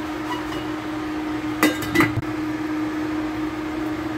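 Steady hum from the glass-top cooktop heating a pan of soup, with two light clinks about halfway through.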